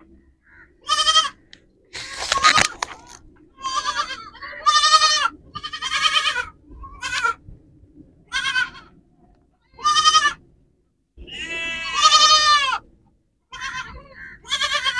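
Young goats bleating over and over: about ten high, quavering calls, one held longer near the end. There is a single sharp knock about two and a half seconds in.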